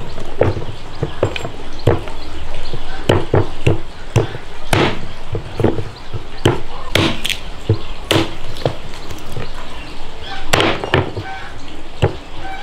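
Repeated chopping strikes, about two a second and unevenly spaced.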